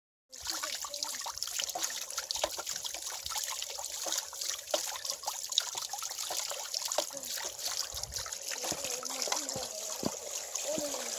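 Water trickling and splashing at a small water wheel in a mountain stream, a steady rush dotted with many small splashes and drips.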